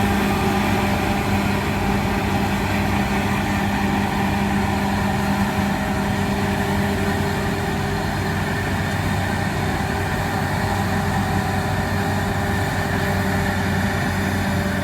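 John Deere X9 1100 combine running steadily while harvesting wheat: a constant engine and machinery drone with an even low hum that does not change.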